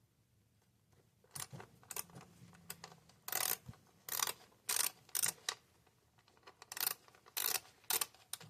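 Socket ratchet clicking in about ten short bursts, one per swing, while an 8 mm socket loosens the ignition coil bolts on a 2.5 L four-cylinder engine.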